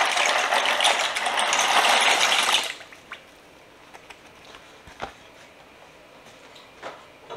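Dry penne pasta pouring out of a cardboard box into a pot of water: a dense rattling rush that cuts off suddenly a little under three seconds in, followed by a few faint clicks.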